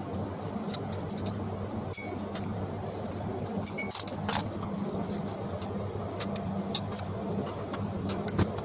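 Scattered light metallic clicks and clinks over a steady low hum.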